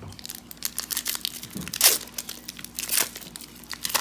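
Foil wrapper of a Pokémon trading card booster pack being torn open and crinkled by hand: a run of sharp crackles, loudest about two seconds in.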